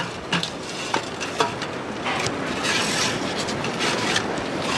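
Scattered sharp clicks and knocks of firework mortar tubes and rack gear being handled, about six in all. A rushing hiss rises about two seconds in and stays until near the end.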